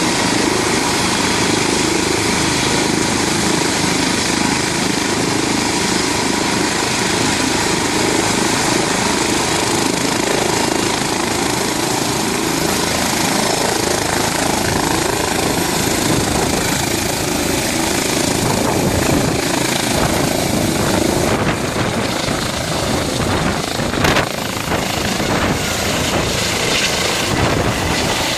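Helicopter engine and rotor running steadily with a dense, even noise. A single sharp click comes near the end.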